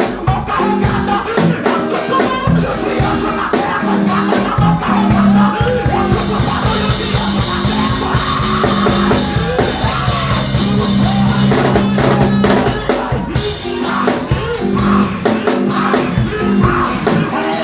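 Loud live worship music: a drum kit over a repeating bass line. About six seconds in, a dense high hissing wash comes in over the music and cuts off sharply some seven seconds later.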